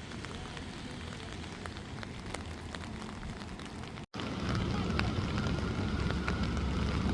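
Rain falling, with many scattered drop ticks over a steady hiss. It cuts out briefly about four seconds in, and when it comes back a louder low rumble runs under it.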